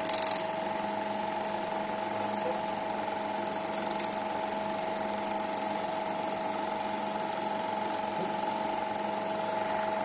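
Cine film projector running with a steady mechanical whir and hum over hiss, with a brief burst of hiss right at the start.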